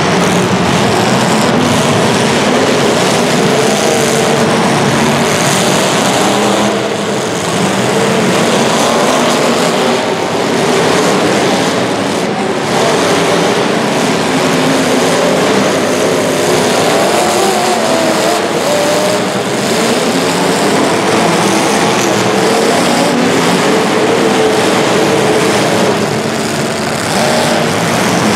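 Several racing engines running and revving together through a race heat, their pitches rising and falling and overlapping as they rev.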